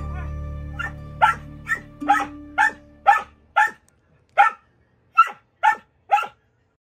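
A border collie barking: a quick series of short, high-pitched barks, about two a second. Background music fades out under the barks in the first three seconds.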